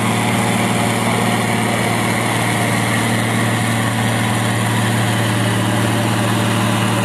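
Ford TW-15 tractor's six-cylinder diesel engine running hard and steady under full load as it drags the weight-transfer sled down the pulling track.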